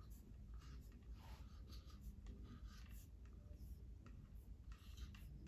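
Faint scratchy strokes of someone writing by hand, a word being written out.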